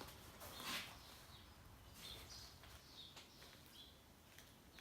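Near silence with faint, short bird chirps in the background and a brief rustle about a second in.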